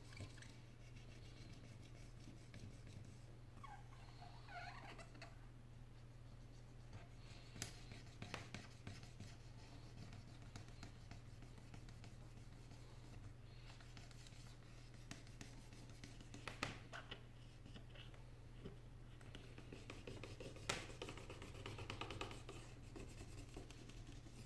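Quiet scratching and rubbing of fingers handling the opened iPad's frame and internal parts, with a few sharp little clicks scattered through, over a steady low electrical hum.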